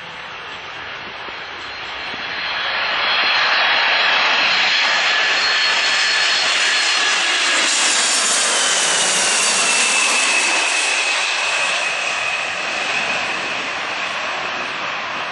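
Twin-engine Boeing 767 jet airliner on final approach passing low overhead, its engines running at approach power. The engine noise swells about two seconds in and stays loud. A whine in it drops in pitch as the plane passes, about ten seconds in, and then the sound eases off a little.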